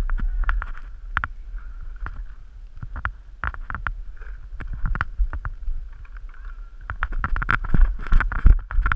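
Paintball markers firing: a string of sharp, irregular pops, coming faster and louder in the last two seconds, over low wind and handling rumble on a camera mounted on the marker.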